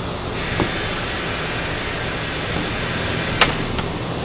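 Steady hum of factory machinery, with a sharp click about three and a half seconds in.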